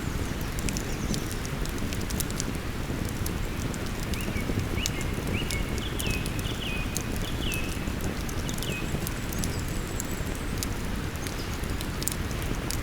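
Campfire crackling with sharp scattered pops over the steady low rush of a river. From about four seconds in, a bird sings a string of short notes for several seconds.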